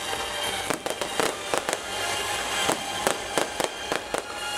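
Fireworks going off overhead: an irregular string of sharp pops and bangs, some in quick clusters, over music playing steadily underneath.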